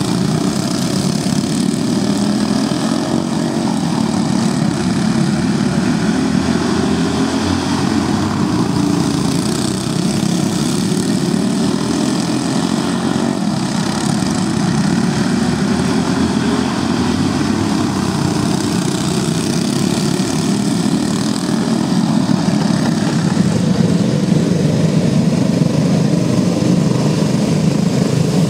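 A pack of go-kart engines, small single-cylinder Briggs & Stratton Raptor motors, running together in a steady drone as the karts lap a dirt oval, a little louder near the end as they come closer.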